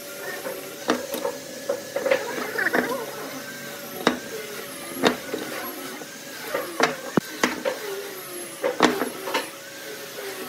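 A steel ruler and a try square are set down and shifted against pine blocks, making sharp clicks and knocks, while a pencil scratches marking lines along the wood. A faint steady hum lies underneath.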